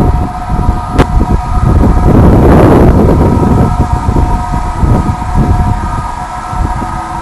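Wind buffeting the microphone over a steady mechanical whine of several held tones, from machinery such as the ship's. There is a sharp click about a second in and a swelling rush of noise around two and a half seconds.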